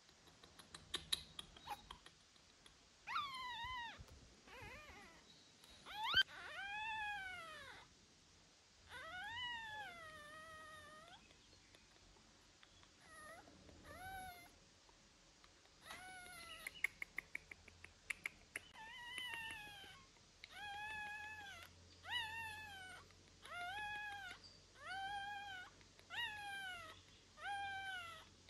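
Young puppy crying: repeated high, arching whines, coming about one a second toward the end. Two short runs of quick clicks, one near the start and one past the middle.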